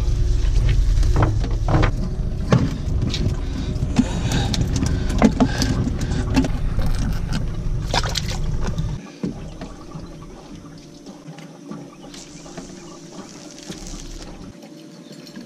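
Cast net of bait fish being hauled in and emptied into a boat's livewell: splashing water and scattered clicks and knocks over a low steady rumble. About nine seconds in it drops to a much quieter rustle.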